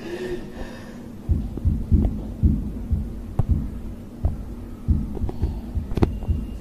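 A run of low, dull thumps at an uneven pace, starting about a second in, with a sharp click near the end.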